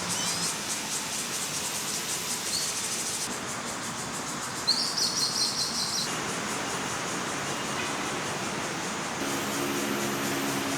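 A bird calling: a quick run of high, rapidly repeated notes lasting about a second, about five seconds in, with a single faint high note earlier. Under it runs a steady hiss of background noise, and a low steady hum comes in near the end.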